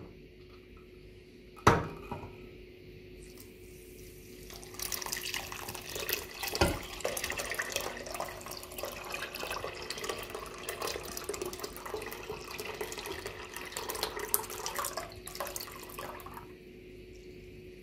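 Milk poured in a steady stream from a plastic jug into a pot of sugar, splashing for about twelve seconds before it stops, with one thump partway through. A sharp click comes about two seconds in, before the pour.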